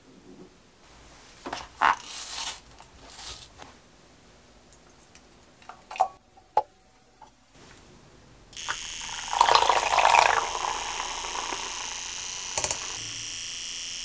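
Handheld battery milk frother whisking fresh cream in a glass: a steady motor buzz that starts a little past halfway, rougher and louder for its first two seconds or so. Before it, a few short knocks and clatter of things being handled.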